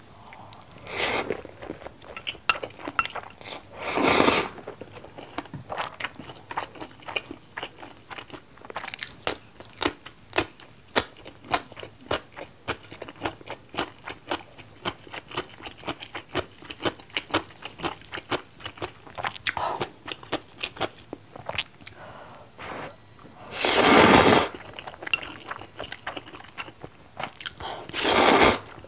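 Close-miked eating of black-bean-sauce ramen noodles: continual wet chewing clicks, with four loud slurps of noodles, one near the start, one about four seconds in and two near the end.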